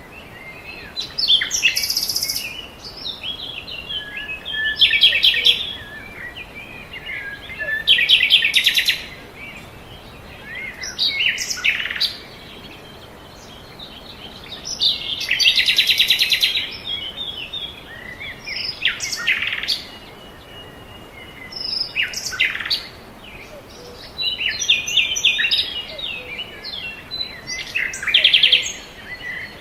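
Birds singing: short song phrases with fast trills and chirps, one after another every few seconds.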